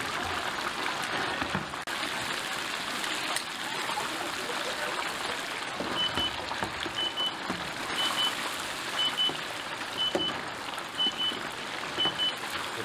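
Steady hiss, with a high electronic beeper sounding a short double beep about once a second from about halfway through.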